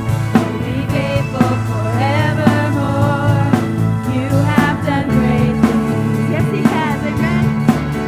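Christian worship song: a band playing with a singing voice over sustained bass notes and a steady drum beat.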